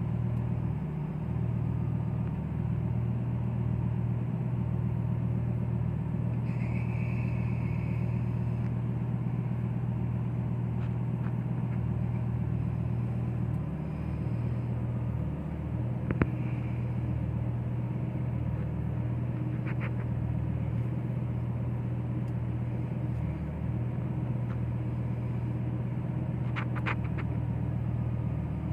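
Lamborghini sports car engine idling steadily in neutral with a low, even hum, heard from inside the cabin. There is one sharp click about halfway through.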